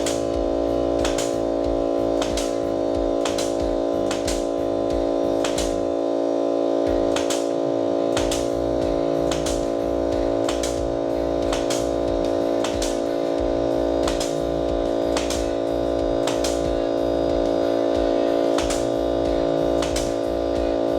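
DeWALT DCC2520B cordless air compressor running with a steady drone while a DeWALT 18-gauge brad nailer fires 2-inch nails about once a second, each shot a sharp snap. At one shot a second the compressor keeps up.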